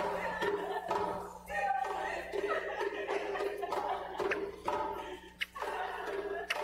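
Several voices from a group of stage performers mingling, with a steady low hum beneath and a few sharp clicks in the second half.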